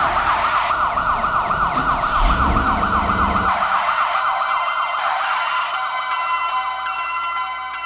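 Synthesized siren effect from a TJ Media PRO-2000 karaoke machine's Roland SC-55 sound module: a fast yelping siren sweeping up and down about four to five times a second, over a low rumble for the first few seconds. From about five seconds in, synthesized bell-like chime tones come in as the siren fades.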